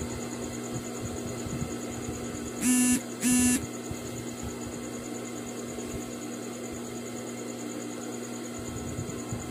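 Sewing machine motor humming steadily, with two short bursts of machine stitching close together about three seconds in.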